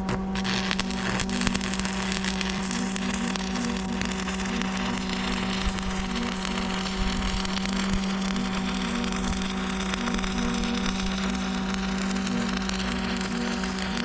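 Stick-welding arc crackling and sizzling steadily as a 6013 rod, turned down to about 75 amps, runs a bead on a steel PTO shaft, over the steady hum of the Lincoln welder.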